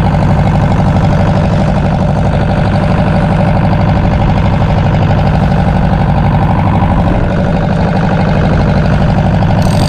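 A fishing boat's diesel engine running steadily.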